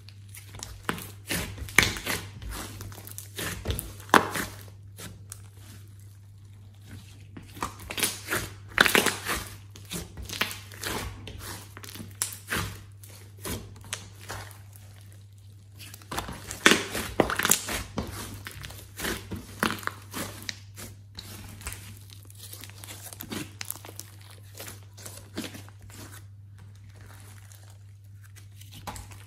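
Thick clay slime being squished, poked and stretched by hand: sticky crackling and popping in irregular clusters, with quieter pauses between handfuls.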